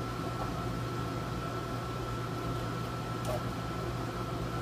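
Room air conditioner running with a steady low hum and a thin steady whine, with one light click about three seconds in.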